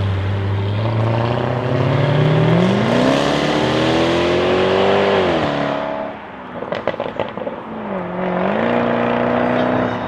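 Jaguar F-Type SVR's supercharged V8 accelerating away, its engine note climbing steadily with the revs for a couple of seconds before dropping off. A burst of sharp exhaust crackles and pops follows about seven seconds in, and a steady engine note returns near the end.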